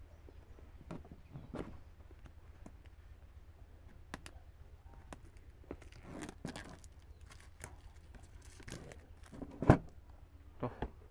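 Clear plastic shrink-wrap being torn and peeled off a smartphone box, with scattered crinkles and crackles. One louder sharp snap comes near the end.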